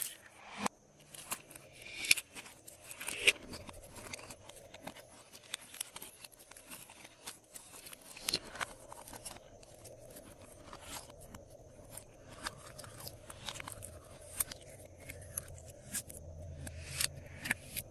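Glossy slime being mixed and squished by hand, with irregular sticky clicks, pops and crackles.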